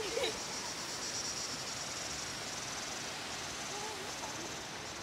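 Forest insects buzzing steadily in a high-pitched drone, over a constant rushing noise from a waterfall.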